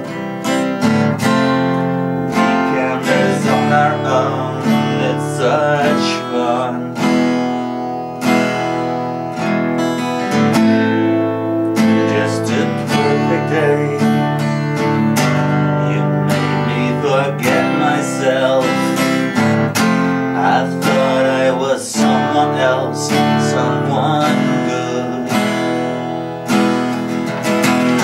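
Acoustic guitar strummed in a steady rhythm, chords changing every few seconds.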